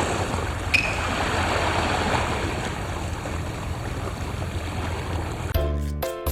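Steady rushing of water and wind over a low, even engine hum, typical of a boat under way, with a single click about a second in. Music with a clear beat of notes comes in near the end.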